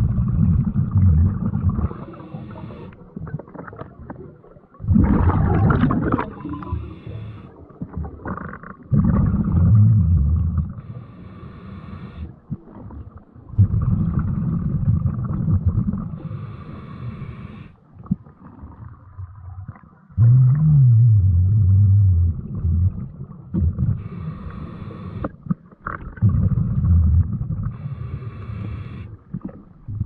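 Scuba diver breathing through a regulator underwater: exhaled bubbles rumble in bursts of a couple of seconds, alternating with short hisses of each inhale, a breath cycle about every four to five seconds.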